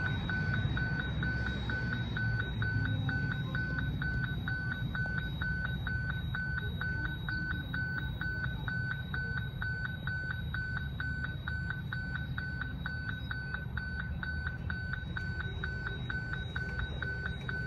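Electronic level-crossing warning bell ringing: a single high tone beeping steadily about two to three times a second, warning of an approaching train. A steady low rumble runs underneath.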